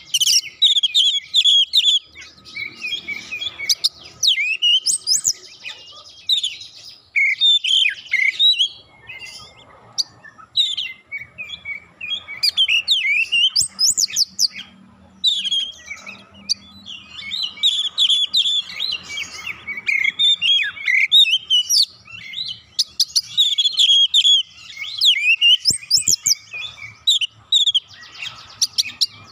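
Caged Oriental magpie-robin (kacer) in full song: fast, dense runs of varied high whistles, chirps and trills. Short pauses break the song about a third of the way in and again about two thirds in.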